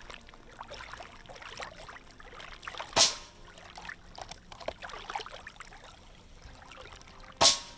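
Two sharp cracks of a Umarex .22 air rifle firing, about four and a half seconds apart, one about three seconds in and one near the end, with faint scattered crackling between them.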